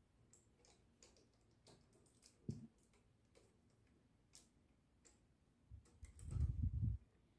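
Plastic Lego pieces of a Clone Turbo Tank model clicking and knocking faintly as a hand handles them, with one sharper knock about two and a half seconds in. Near the end there is a louder stretch of low rubbing and thumping as the hand presses on the model's roof panels.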